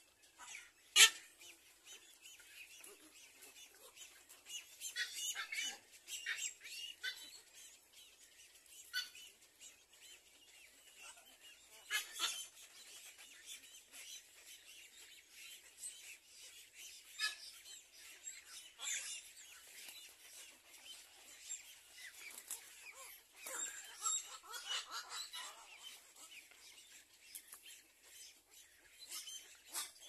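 Birds calling on and off: short harsh calls and chirps, scattered every few seconds, over faint bird chatter.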